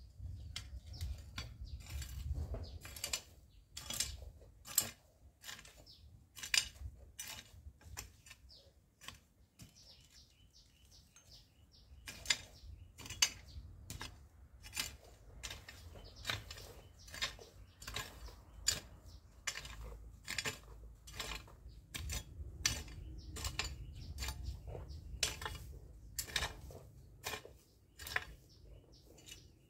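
Long-handled garden tool scraping and chopping at dry soil and weeds, a string of sharp scrapes and strikes about one or two a second, thinning out briefly around ten seconds in.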